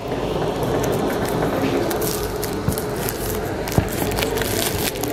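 Clear plastic packaging crinkling and rustling as hands handle it, with sharp crackles throughout over a steady low hum.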